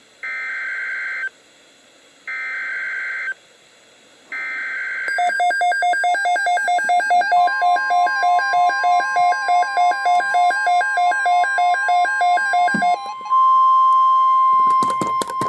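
Emergency Alert System SAME header: three one-second bursts of screechy digital data tones with short gaps between them. These are followed by about eight seconds of rapid pulsing electronic beeps. Then, near the end, a steady single-pitch alarm tone, the NOAA Weather Radio alert tone, comes in with a few sharp clicks.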